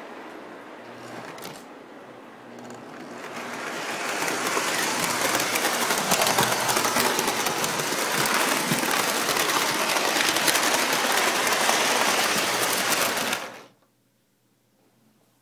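Model electric train running on three-rail track, heard from a phone riding on it: a dense mechanical clatter of motor and wheels that builds up over the first few seconds, stays loud, then cuts off suddenly about 13 seconds in as the train stops.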